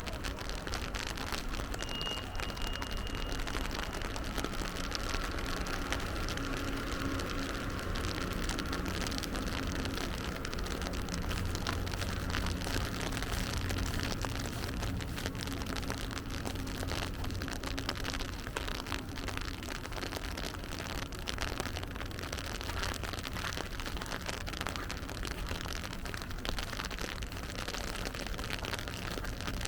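Steady rain falling in a city street, a dense patter of drops over a low rumble of traffic. A brief high-pitched tone sounds about two seconds in.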